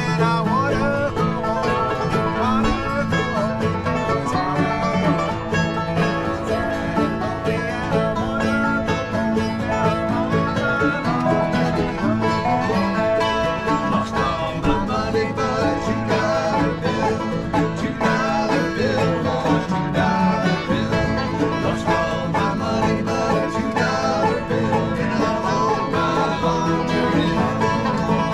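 Acoustic bluegrass jam band playing together: acoustic guitars, banjo, mandolins and a Dobro resonator guitar, with steady, continuous picking.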